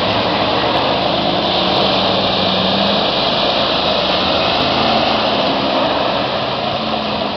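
4x4 SUV engines running steadily as the vehicles drive through a flooded, muddy field, over a continuous rushing noise.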